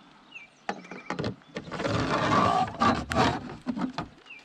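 Knocking, scraping and rubbing of handling on the kayak: a few sharp knocks, then about two seconds of busy scraping and clattering that dies away near the end.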